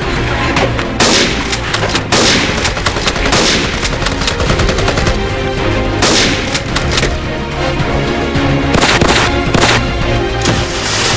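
Rapid, machine-gun-like gunfire sound effects with several louder single shots, laid over a music track that runs throughout.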